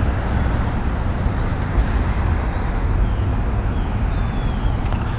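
Steady outdoor background rumble, with a thin, steady high-pitched tone above it.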